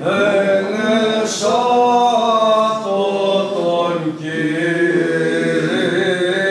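Greek Orthodox Byzantine chant: unaccompanied voices singing a slow line of long held notes that move in pitch, with brief breaks for breath.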